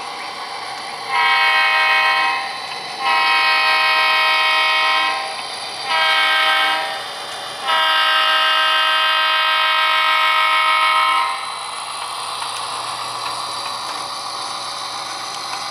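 HO scale model diesel locomotive's sound decoder blowing a multi-tone horn in the grade-crossing pattern: long, long, short, long. A steady engine sound from the decoder runs underneath and carries on after the last blast.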